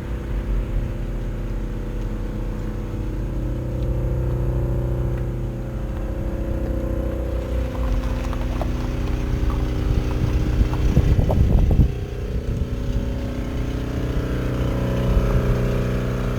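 Car engines running steadily. A louder, wavering burst comes about eleven seconds in and cuts off sharply just before twelve seconds.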